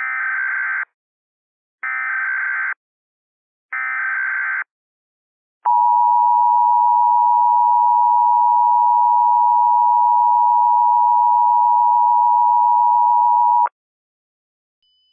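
Emergency Alert System tones. Three short bursts of SAME header data come about two seconds apart, then the steady two-tone EAS attention signal sounds for about eight seconds and cuts off. Together they signal that an emergency alert message is about to be broadcast.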